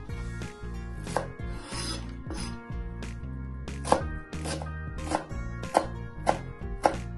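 Knife chopping food on a cutting board: sharp strikes, sparse at first, then about two a second in the second half, over background music.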